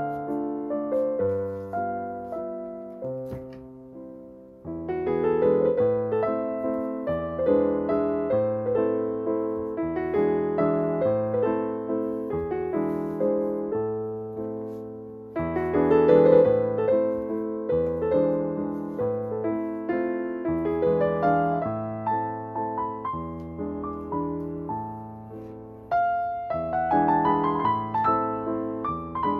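Gentle solo piano music: a melody of struck notes that ring and fade over low bass notes, with a new, louder phrase starting about five seconds in, again about halfway through, and near the end.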